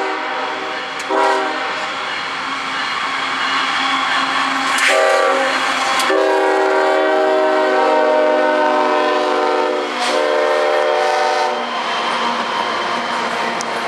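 Freight locomotive's air horn blowing a series of long and short blasts as the lead unit passes close by. The horn stops near the end, leaving the rumble and clatter of double-stack intermodal cars rolling past.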